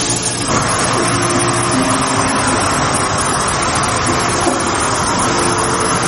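Shower water running steadily, a constant spray.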